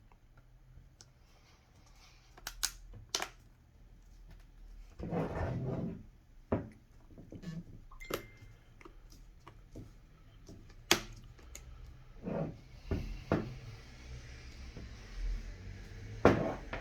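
Scattered plastic clicks, snaps and knocks as a tablet's screen is pressed and clipped back into its frame by hand, with a longer scraping rub about five seconds in.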